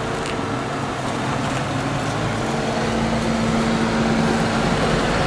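Chevrolet Corvette C4's V8 engine running at low speed as the car is driven in, getting a little louder about three seconds in. The engine has a little misfire.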